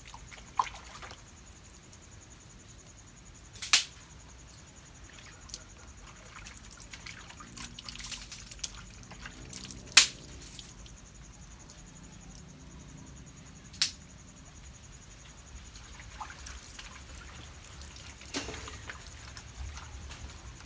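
Water dripping and trickling off a wet, soapy puppy held up over a bucket of water. A few sharp clicking drips stand out, the loudest about ten seconds in.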